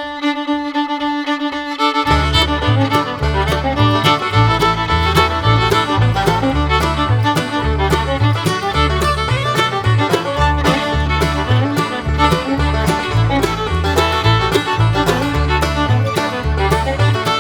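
Background music with fiddle: a held chord opens, then about two seconds in a bass line and a steady beat join, in an upbeat bluegrass-country style.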